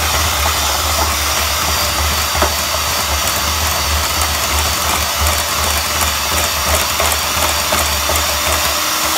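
Electric hand mixer running steadily at full speed, its beaters creaming butter and powdered sugar in a glass bowl until light and fluffy.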